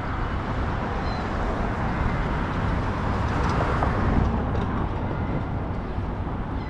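City street traffic, a motor vehicle passing close by and loudest about four seconds in.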